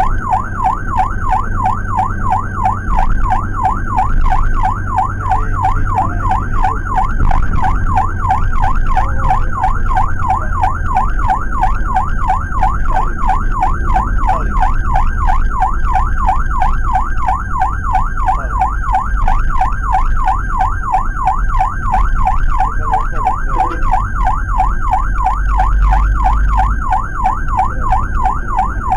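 Electronic ambulance siren in a fast yelp, rising and falling several times a second without a break, heard from inside the Suzuki APV ambulance's cabin over low engine and road rumble.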